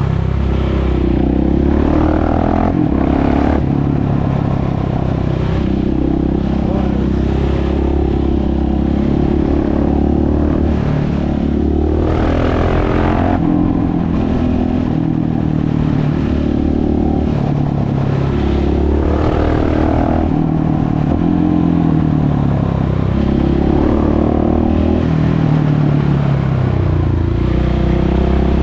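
KTM 690 SMC R single-cylinder four-stroke engine running loud through an exhaust with its dB-killer removed, its pitch rising and dropping again and again as the bike accelerates and shifts gears.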